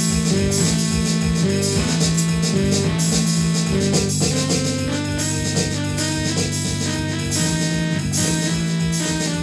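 Electronic drum kit played along to a guitar-led rock/blues backing track, with a steady beat under sustained guitar notes.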